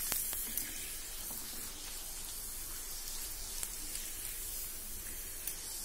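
Homemade potato papad deep-frying in hot oil in a kadhai: a steady sizzle with scattered faint crackles.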